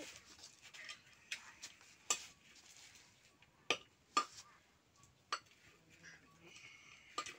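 A metal ladle stirring and scraping in a metal cooking pot, with about five sharp clinks of metal striking metal.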